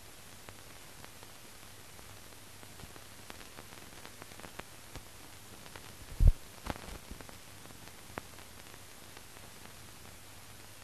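Old newsreel soundtrack with no commentary: a steady film hiss and low hum, scattered crackles and clicks, and one loud pop about six seconds in.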